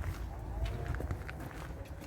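Footsteps walking along an outdoor path: irregular scuffs and clicks over a low rumble.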